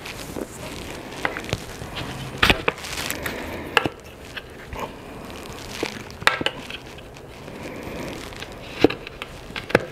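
A plastic tyre lever and hands levering a tight road tyre bead over a carbon wheel rim: scattered clicks, knocks and rubbing of rubber against the rim, with a sharper knock about two and a half seconds in and again near the end.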